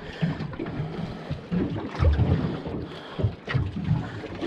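A small boat on choppy water: water slapping against the hull, wind buffeting the microphone, and a few low thumps, the loudest about two seconds in.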